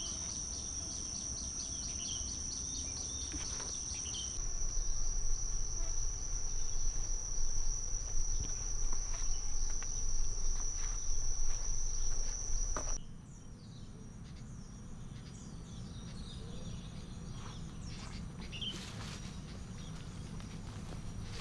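A steady, high-pitched insect drone that cuts off abruptly about two-thirds of the way through. After it stops, only quieter forest background with a few faint clicks remains.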